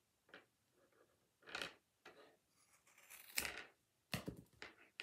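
Scissors snipping through the looped ends of a bundle of yarn, several cuts at irregular intervals.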